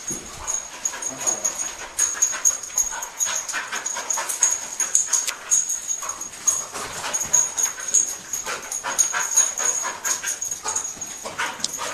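An English springer spaniel cadaver dog panting as it works a search, with many irregular short scuffs and clicks.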